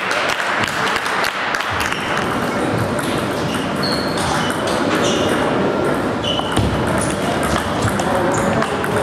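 Table tennis balls clicking off bats and tables, many irregular hits from several tables at once, ringing in a large sports hall, over a murmur of voices and a few short high squeaks.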